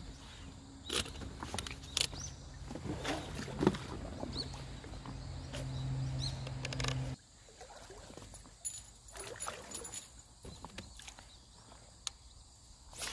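Haswing 1 hp electric outboard motor running with a steady low hum, with a few sharp knocks over it; the hum cuts off suddenly about seven seconds in. Scattered light clicks follow.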